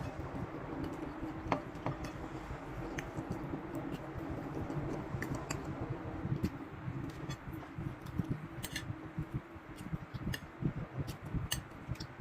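Eating sounds: chewing, with scattered light clicks of cutlery against a plate, over a steady low hum.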